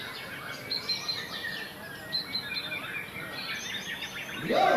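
Several caged white-rumped shamas (murai batu) singing at once in a song contest, with many overlapping high chirps and whistled phrases. A louder voice cuts in near the end.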